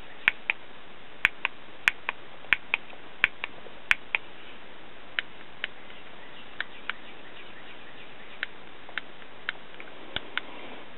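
Sharp plastic clicks of buttons on an infrared remote control being pressed and released, many in quick pairs. They come quickly for the first four seconds, then more sparsely, over a steady background hiss.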